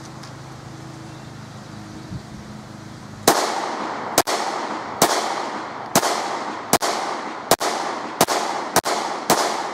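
Smith & Wesson Shield compact pistol fired nine times in a steady string, starting about three seconds in, the shots a little under a second apart. Each sharp crack is followed by an echo that dies away.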